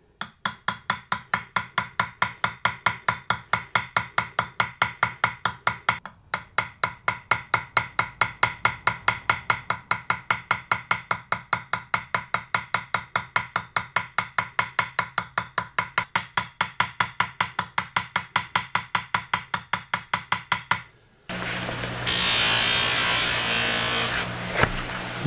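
Small hammer tapping the handle pin of a knife against an anvil horn to peen it over, about four or five light, ringing strikes a second with a short break about six seconds in. Near the end the taps stop, a bench buffer's motor starts humming, and its cloth buffing wheel hisses against the wooden handle.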